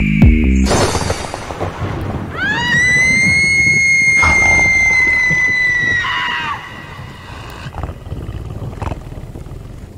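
Electronic beat stops just after the start. After a rush of noise, a long high-pitched scream rises, holds steady for about four seconds and breaks off, over a steady hiss.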